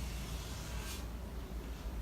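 Room tone: a low steady hum, with one short hiss about a second in.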